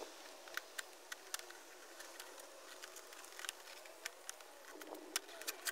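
About a dozen light, irregularly spaced clicks and taps of a Honda CBR600RR's plastic tank cover being pressed down and clipped into place by hand.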